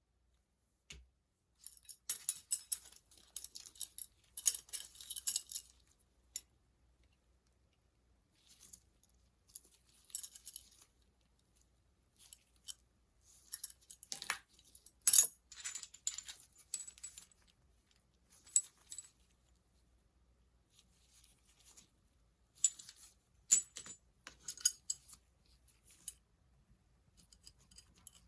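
Irregular metallic clinks and rattles from handling bicycle parts and tools, coming in short clusters with quiet gaps between; the sharpest clink is about halfway through.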